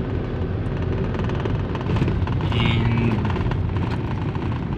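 Steady low rumble of a car's engine and tyres heard from inside the cabin while it drives along, with music playing along with it.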